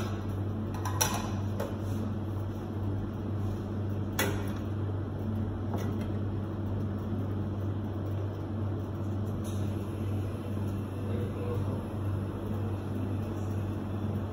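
Steady low hum of kitchen equipment, with two short sharp knocks about one and four seconds in as a knife is worked on a plastic cutting board.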